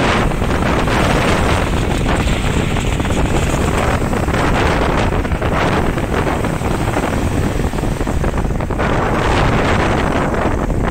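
Small sea waves breaking and washing up a sandy shore, swelling and easing every couple of seconds, with strong wind buffeting the microphone in a heavy low rumble.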